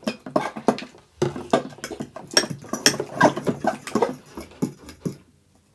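Utensils stirring activated slime in bowls: rapid, irregular clicks and taps against the bowls that stop about five seconds in.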